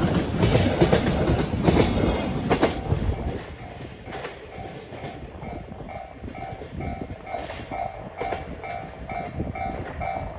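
Container wagons of a freight train rolling past with wheels clattering over rail joints, the sound falling away about three seconds in as the end of the train passes. A Japanese level-crossing alarm then rings steadily and faintly, about two strokes a second.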